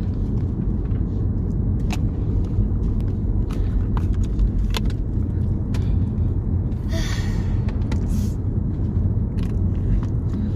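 Steady low rumble of a car, heard from inside the cabin, with scattered small clicks and a brief hiss about seven seconds in.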